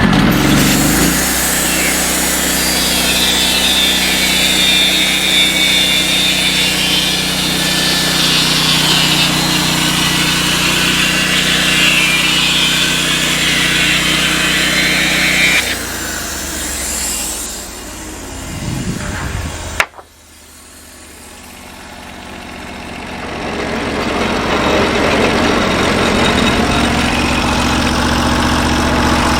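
Norwood portable band sawmill's engine-driven blade cutting through a log, a steady high whine over the engine hum. About fifteen seconds in the cut ends and the engine drops back; a sharp click comes near twenty seconds in, then the engine sound builds back to a steady run.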